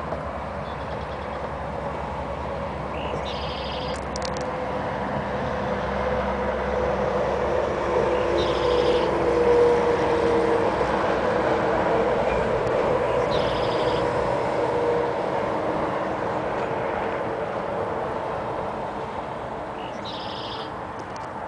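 Highway traffic on an elevated road: a truck passing, its tyre and engine noise swelling to a peak about halfway through and then fading, over a steady traffic hum. Short high chirps come four times.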